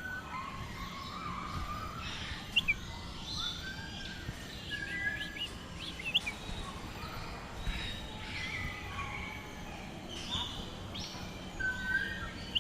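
Several birds calling at once: short chirps and whistled notes, some sweeping quickly upward, with a few sharper, louder call notes standing out, over a steady low background hum.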